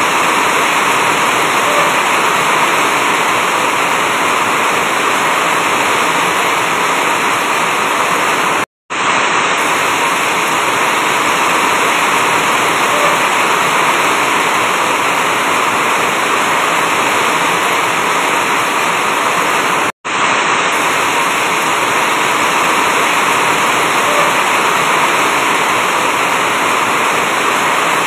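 Heavy rain falling steadily on an asbestos roof. The sound cuts out completely twice for a moment, about nine and twenty seconds in.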